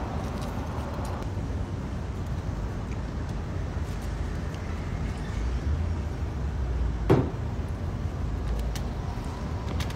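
Steady low rumble of road traffic going by, with one sharp knock about seven seconds in and a few faint clicks.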